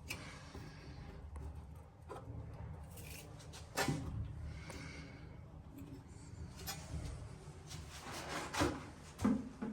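Scattered light clicks and knocks of hands working on the installation, over a low background hum. A sharper knock comes about four seconds in, and a few more come near the end.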